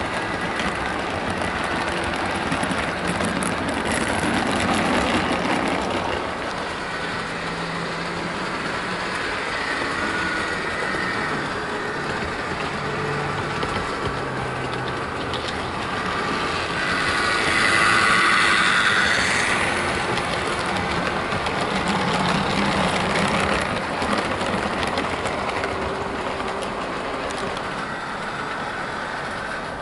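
Heljan Class 17 Clayton OO-gauge model locomotive hauling coaches round a model railway, its noisy motor running and its wheels running on the track. It gets louder about halfway through as the train passes close.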